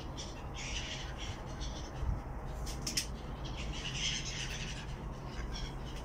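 Black-headed gulls squawking, several harsh calls overlapping, the busiest near the start and again about four seconds in, over a steady low hum.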